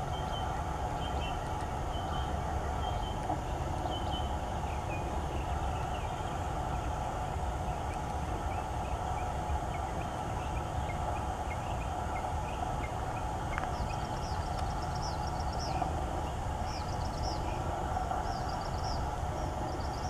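Steady low outdoor rumble, like distant traffic, with scattered short bird chirps over it. The chirps come thicker and higher-pitched in the last several seconds.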